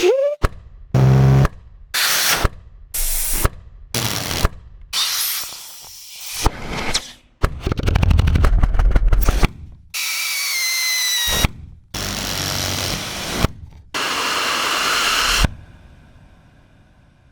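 A string of about a dozen short suction and vacuum sound effects, each cut off sharply before the next begins; some carry a whistling hiss, and the last one fades away near the end.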